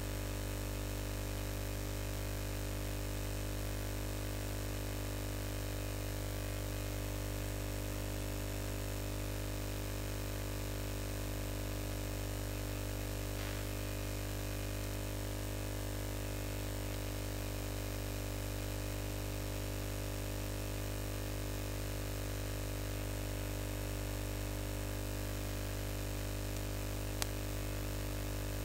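Steady electrical mains hum with many evenly spaced overtones under a layer of hiss, unchanging throughout. One short click comes near the end.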